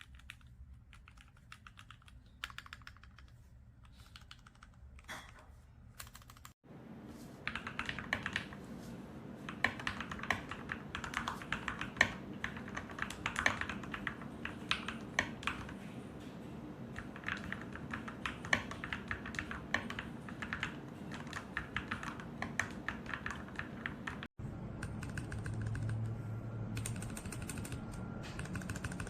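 Typing on a mechanical keyboard fitted with factory-lubed Gateron Pro Milky Yellow linear switches: a dense run of key clicks and clacks. There are two abrupt changes, a few seconds in and near the end, like cuts between takes, and the middle stretch is louder.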